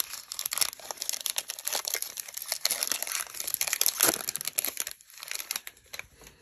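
Foil trading-card pack being torn open and crinkled by hand: a dense crackle of wrapper noise, loudest in a crunch about four seconds in, that dies down in the last second or so.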